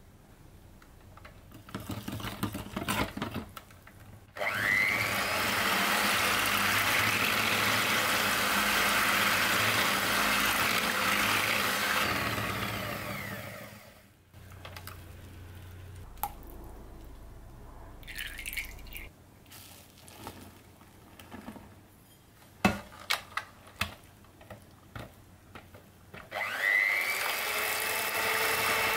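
Electric hand mixer with twin wire beaters starting with a rising whine, running steadily in a thin flour-and-yeast-water batter for about eight seconds, then winding down. Light clicks and knocks follow. Near the end the mixer starts again, now beating the rest of the flour into the dough.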